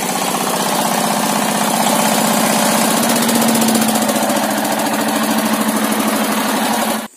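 Yanmar TS230 single-cylinder diesel engine powering a table saw, running steadily with a rapid, even beat; its note rises slightly midway, and it cuts off abruptly about seven seconds in.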